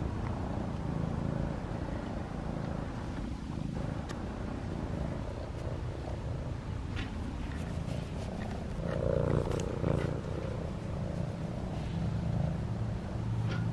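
Tabby cat purring steadily right at the microphone while being petted, a low rumble, with occasional rustles of fur against the phone.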